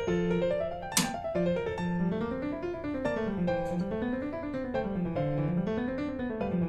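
Background music played on piano or keyboard, with a bass line stepping up and down in runs under quick notes, and one sharp hit about a second in.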